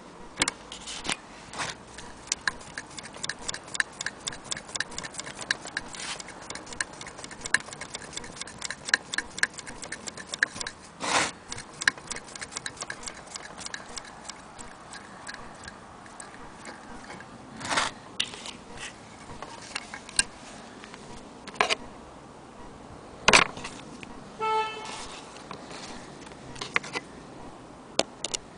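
Antique Willcox & Gibbs chain-stitch sewing machine running, its needle mechanism clicking rapidly and evenly as it stitches fabric. About halfway through the clicking thins out to scattered clicks, with a few louder knocks.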